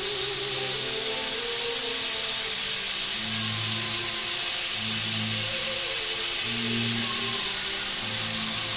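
Stovetop pressure cooker at pressure, steam hissing steadily from its replacement weighted whistle. Background music with slow held low notes and a wavering melody plays over it.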